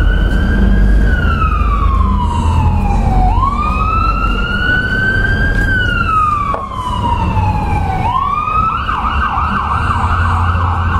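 Emergency vehicle siren wailing, rising quickly then falling slowly in long cycles, then switching to a fast yelp near the end.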